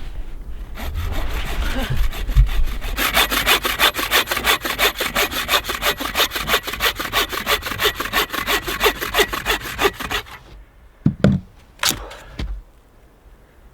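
Hand saw cutting firewood, quick, even back-and-forth strokes that build up over the first few seconds and stop about ten seconds in. A couple of short knocks follow near the end.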